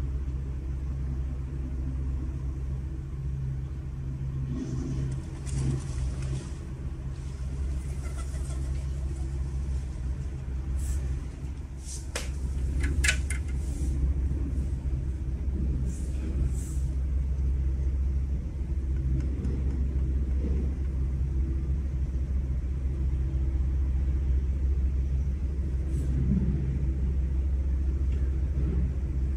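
A steady low droning hum and rumble, the kind reported as a mysterious sound in the sky, with a few short high chirps about halfway through.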